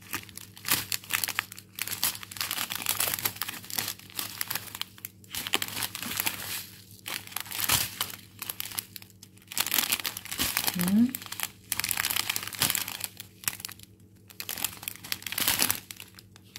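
Small plastic zip-lock bags of round diamond-painting drills crinkling and rustling as they are handled, in irregular bursts with short pauses.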